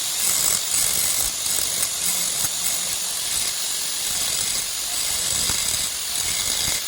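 A steady high hiss with faint scattered clicks.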